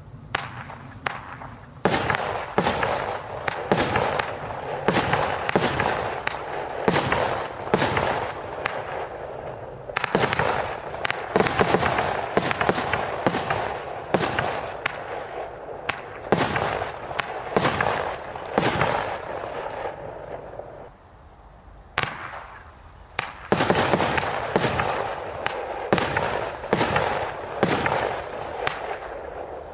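A 19-shot consumer firework barrage cake firing shot after shot, about one shot every half second to a second, each launch followed by bursting and crackling. About twenty seconds in the firing briefly dies away, then starts again.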